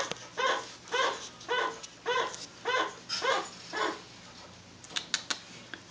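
Chinchilla giving a repeated barking alarm call, short honking barks about two a second that stop after about four seconds, followed by a few sharp clicks. The owner takes it for a warning call about the dog.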